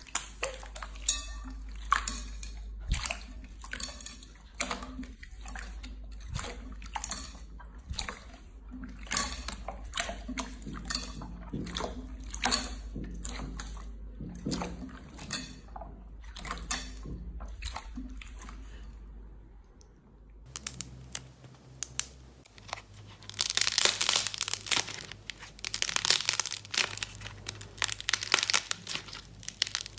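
Slime being pressed and squeezed by hand, giving a run of crisp crackling clicks and pops. About twenty seconds in it changes to denser, louder crunching bursts.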